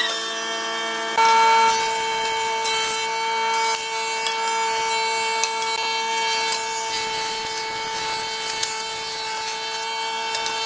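Combination woodworking machine's thickness planer running with pine boards fed through it: a steady machine whine with the rough hiss of the cutterhead taking shavings off the wood. Just over a second in it gets briefly louder, and a higher whine then holds steady.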